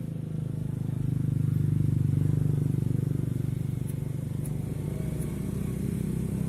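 An engine running steadily with a low hum, swelling to its loudest about two seconds in and then easing slightly.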